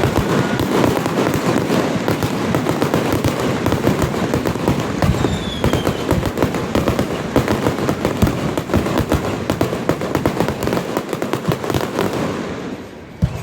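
Fireworks going off in a dense, continuous barrage of bangs and crackling. It thins out and quietens near the end.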